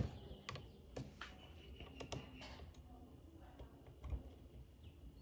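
Faint, scattered metallic clicks and taps of small hand tools, as a hex driver is fitted into the heated set screw of an RC car's pinion gear.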